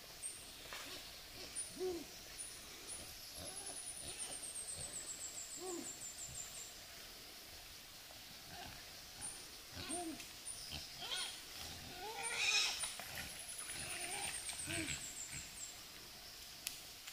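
Birdsong heard twice: a few short high notes followed by a quick, falling trill. Beneath it, short low calls repeat every second or so, with a louder, noisier sound about three quarters of the way through.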